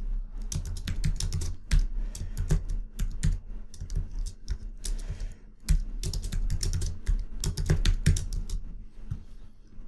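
Typing on a computer keyboard: quick, irregular runs of keystrokes with short pauses between them.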